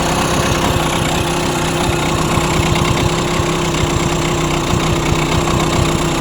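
35 hp Mercury outboard engine running at a low idle with an uneven, irregular beat. The owner suspects a spark plug arcing somewhere and thinks the idle needs to come up.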